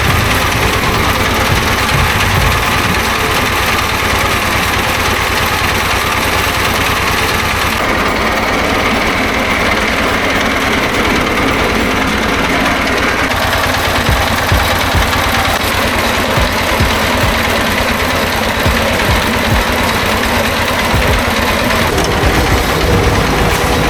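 Heavy construction machine's engine running steadily and loudly; its sound dulls for about five seconds, some eight seconds in, then brightens again.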